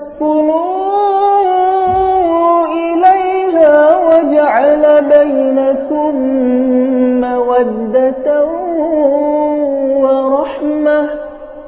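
Quran recitation: a solo voice chants one long drawn-out melodic phrase, holding and ornamenting its notes with little clear wording, and stops near the end.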